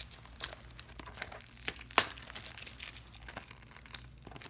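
Packaging of a replacement phone battery being handled and pried open: irregular crinkling and crackling, with a sharp snap about two seconds in.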